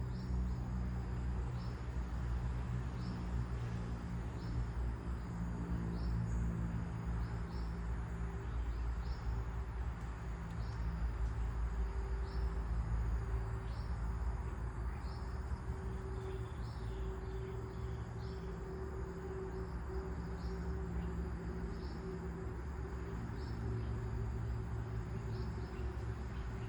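Outdoor nature ambience: short high chirps repeating about once a second over a steady hiss and a low steady hum.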